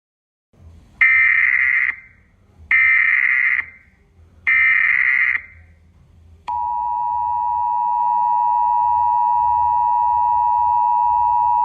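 Emergency Alert System tones: three short bursts of SAME header data, each a harsh digital screech about a second long with short gaps between, then the steady two-tone EAS attention signal, which comes in about six and a half seconds in and holds.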